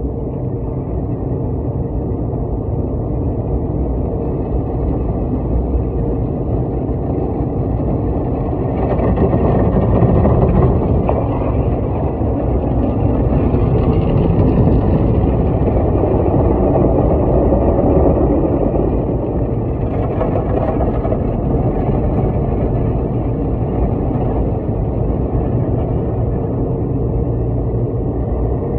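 Automatic car wash heard from inside the car: a steady rumbling rush of water and foam being sprayed and worked over the body and windshield. It swells louder for a while in the middle, then settles back.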